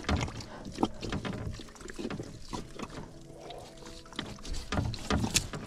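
Irregular knocks and scrapes of a metal mud crab hook being probed into a crab hole among mangrove roots and rotten timber, with bumps against the plastic kayak. The hole sounds empty: nothing answers the hook. A faint steady hum comes in about halfway.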